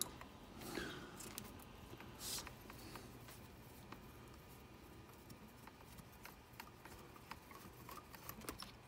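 Faint scattered clicks and brief scrapes of a hex driver working small screws and of small parts being handled on an RC crawler's front axle.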